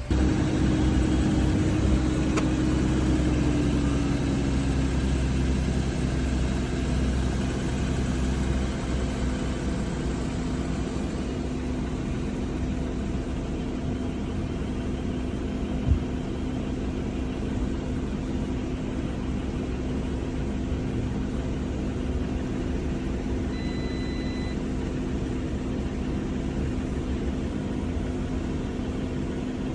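Audi 3.0 supercharged V6 catching and running at a fast idle, its hum dropping in pitch and loudness over the first few seconds as it settles into a steady idle, with a misfire on one cylinder. A single knock about halfway through and a short beep later.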